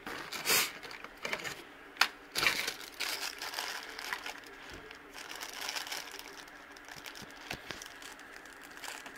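Clear plastic zip-top bag and blister packaging crinkling and rustling as they are handled, with a few sharper crackles in the first two seconds or so, then lighter, continuous crinkling.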